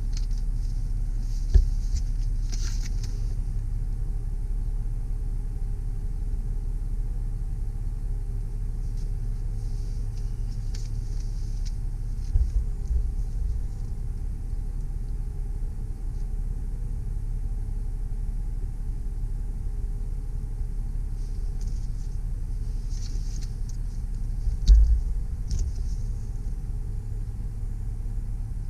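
The Mercedes ML320 CDI's 3.0-litre V6 turbo diesel idling, a steady low rumble heard from inside the cabin. Over it come a few soft knocks and paper rustles as the owner's manual booklets are handled, the loudest knock near the end.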